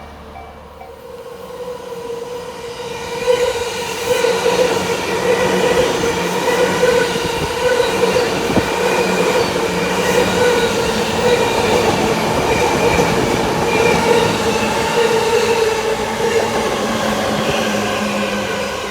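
A JR Yamanote Line electric train passes over the level crossing. The rail noise swells in about three seconds in and holds, with a steady ringing tone over it, then eases off near the end. A level-crossing bell dings in the first second.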